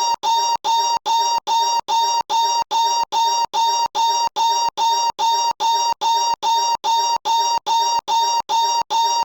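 A short pitched noise repeated in a tight loop, nearly three times a second, every repeat identical and cut off by a brief silence.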